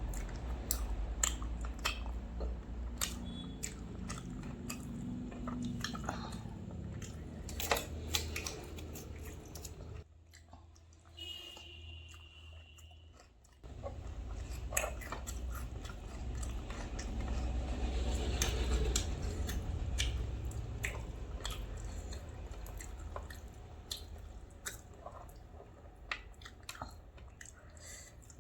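Close-miked chewing and crunching of food, with wet mouth clicks and smacks at an irregular pace. There is a quieter pause about ten seconds in, lasting a few seconds.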